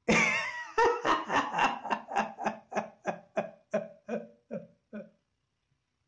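A man's acted laughter: a sudden burst, then a run of rhythmic 'ha' pulses, about three a second, that slow and fade away, stopping about five seconds in.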